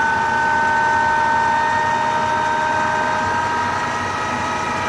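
LG direct-drive washing-machine motor belt-driving a permanent-magnet generator, running steadily with a high, even whine whose pitch sinks slightly over a few seconds.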